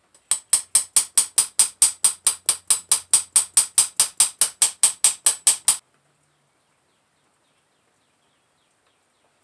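A rapid, evenly spaced run of sharp clicks, about four and a half a second, that stops abruptly about six seconds in.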